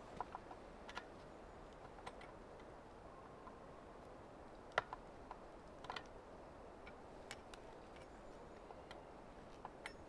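Scattered light clicks and taps from hands working on a chainsaw with its engine off, the sharpest click about five seconds in.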